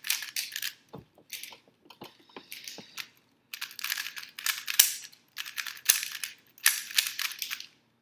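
A plastic Rubik's cube being turned rapidly by hand during a speed solve: fast clattering clicks of the layers snapping round, in bursts with short pauses between.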